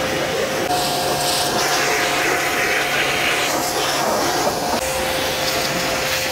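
Pressure washer running, its water jet rinsing degreaser off a motorcycle's engine and exhaust. A steady hiss of spray over the hum of the pump motor.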